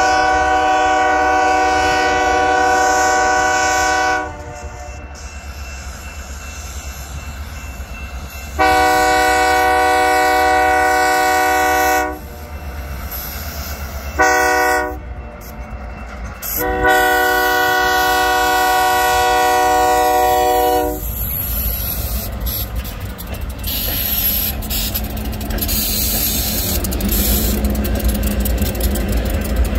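Great Lakes Central Railroad diesel locomotive horn sounding a chord in the grade-crossing signal: long, long, short, long, the last blast ending about 21 seconds in. Then the locomotives pass close by, a growing engine rumble with wheels clacking over the rail joints.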